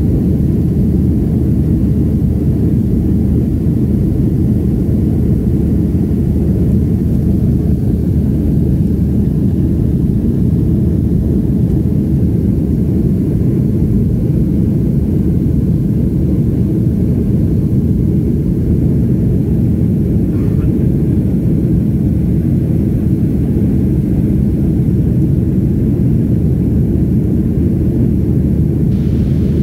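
Steady low rumble inside the cabin of a Boeing 737-500 in its climb after takeoff: the CFM56-3 engines and the rush of air over the fuselage, heard by a window seat over the wing, unchanging throughout.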